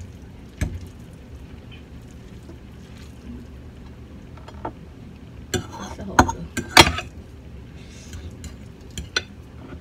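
Metal forks clinking and scraping against a pan and ceramic plates while spaghetti is served, a scatter of sharp clinks, the loudest about seven seconds in.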